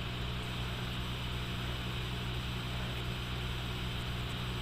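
Steady low hum with an even hiss over it: background noise with no distinct event, no sneeze or voice.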